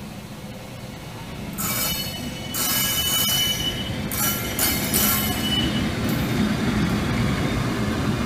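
ÖBB class 1144 electric locomotive rolling slowly past, its wheels squealing shrilly in three or four stretches from about a second and a half in. The squealing fades by about six seconds in, leaving a steady rumble of wheels on the rails.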